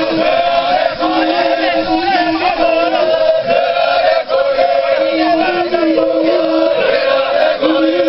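A crowd of men singing a chant together, many voices holding the same notes in a repeated phrase.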